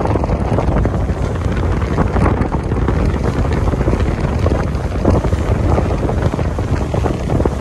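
Strong wind buffeting the microphone aboard a sailing catamaran under way, a loud, gusty rumble over the rush of the boat moving through the water.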